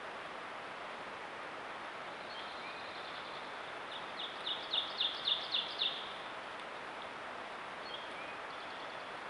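A bird calls a quick series of about eight sharp, high notes about four seconds in, with a few faint single calls before and after, over a steady background hiss.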